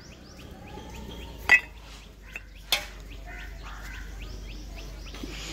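Small birds chirping over and over, with three sharp clinks. The loudest clink comes about a second and a half in.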